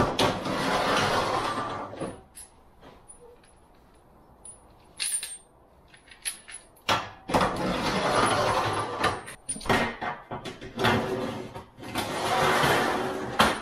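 Power driver running in three bursts of about two seconds each, driving long structural screws into a wall stud, with short metal clicks and clinks in the pauses between.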